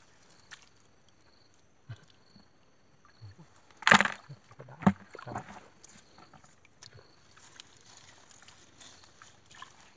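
Hands sorting through a heap of small catch on a fine nylon mesh net: faint rustles and small clicks, with one sharp, loud rustle about four seconds in and a few smaller ones just after.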